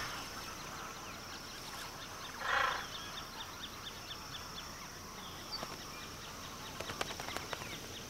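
A hyacinth macaw gives one short, harsh squawk about two and a half seconds in. Behind it runs a rapid, even series of high ticks, with a few sharp clicks near the end.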